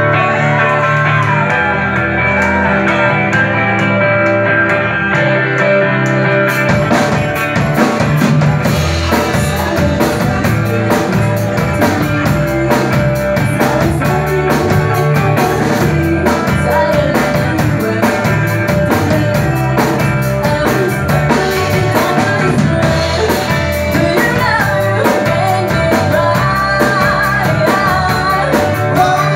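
Live rock band playing amplified: electric guitar alone at first, then the drum kit with cymbals comes in about six seconds in, with vocals sung over the band.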